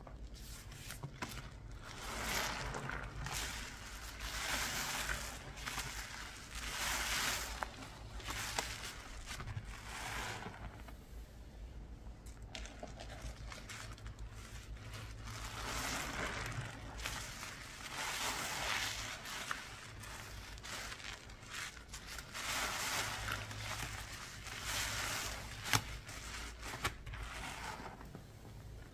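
Soapy cleaning paste of pine cleaner, Ajax and fabric softener being worked by hand, in repeated strokes of noise about every two seconds, with a lull about halfway through.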